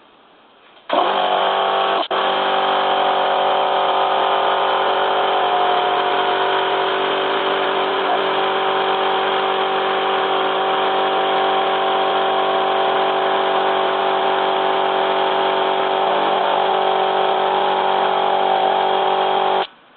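Twin-piston air compressor switched on about a second in, running with a steady electric-motor-and-piston hum, then switched off abruptly near the end. It runs sluggishly, "far from brisk", a sign that it is still leaking air and not building pressure properly.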